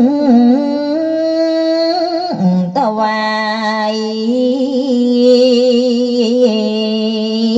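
Music: a single voice sings long held notes with a wavering vibrato, dropping to a lower note about two and a half seconds in.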